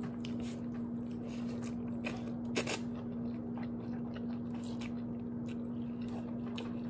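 Two people eating ramen noodles with chopsticks: close chewing and slurping mouth noises with small clicks, one sharper click about two and a half seconds in, over a steady low hum.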